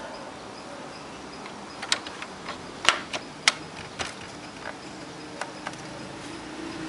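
Sharp clicks and taps of a circuit board and the plastic front-panel parts of a Yamaha PSR-1000 keyboard being handled and pressed into place by hand, about ten in a few seconds and loudest near the middle, over a faint steady hiss.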